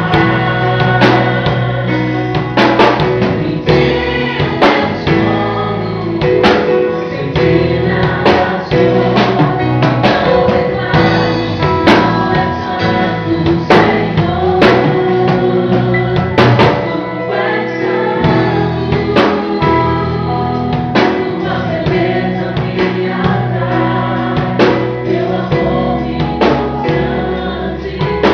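Christian gospel worship music: singing over a band with a drum kit keeping a steady beat and a sustained bass line.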